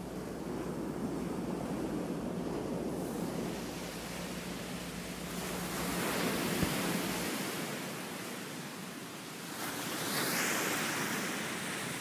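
A steady rushing noise, like surf or wind, that swells about halfway through and again near the end.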